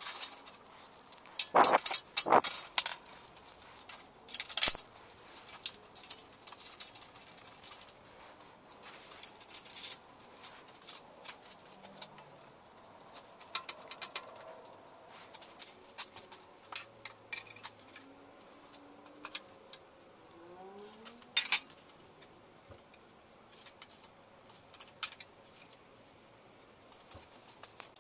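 Steel parts and clamps clanking and clicking on a perforated steel welding table as tube frames and fixtures are positioned and clamped. There are irregular sharp knocks, loudest about two seconds in, near five seconds and again around twenty-one seconds, with lighter taps and rattles between.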